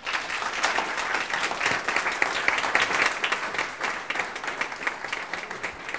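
Audience applauding, a dense patter of many hands clapping that starts at once and carries on steadily.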